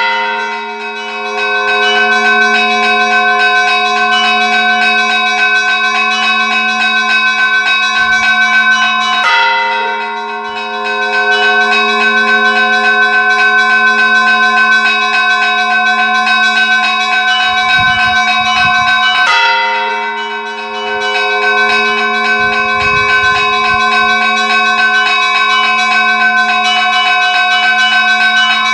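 Church bells ringing in a continuous peal: rapid strokes over a sustained deep bell tone, with a heavier fresh stroke roughly every ten seconds.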